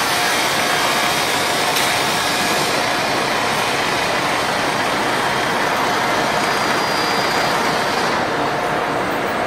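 Fiber cement board production line running: a steady mechanical din from the sanding machine and the belt-driven roller conveyor carrying a board, with a faint steady whine under it.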